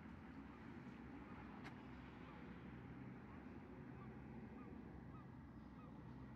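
A series of short, faint goose honks about half a second apart in the second half, over a steady low background rumble.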